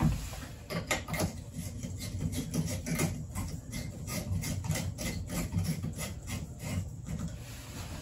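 Light bulb being screwed into a ceiling light fixture: quick, irregular scraping and light clicking, over a steady low rumble from the running washing machine.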